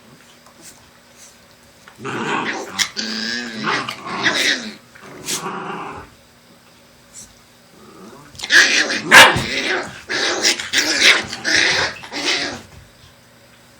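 Black Shiba Inu dogs growling and barking in two bouts, the first about two seconds in and the second, louder one from about eight and a half seconds.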